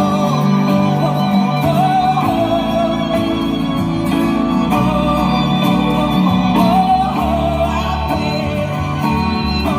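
Live music: a singer with vibrato over instrumental backing with steady bass notes.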